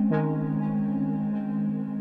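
Background ambient synth music: soft sustained chords, with a new chord coming in just after the start.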